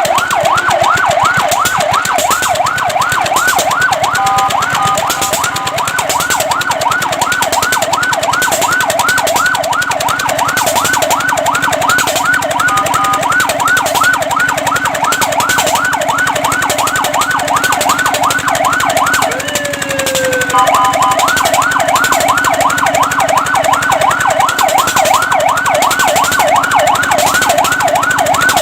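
Fire truck electronic siren in rapid yelp mode, sweeping up and down in pitch several times a second. It is broken briefly a few times by steady stepped tones and once, near twenty seconds in, by a slower glide.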